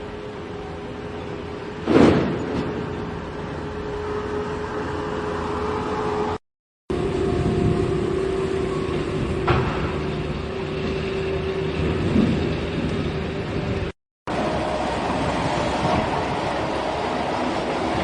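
Heavy vehicle engine running steadily with a held hum, and a sharp bang about two seconds in. The sound cuts out completely for a moment twice.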